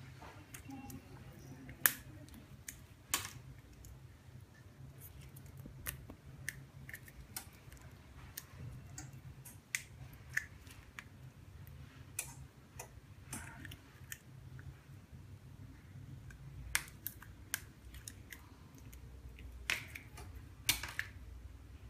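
Irregular sharp clicks and snaps of plastic being cut and picked apart as the base frame of an iPhone 6 Plus LCD is cut into pieces by hand, over a steady low hum.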